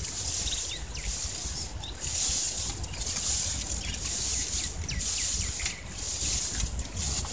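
Water swishing and sloshing in a metal pot as pieces of fish are washed by hand, in repeated bursts, with birds chirping around and wind rumbling on the microphone.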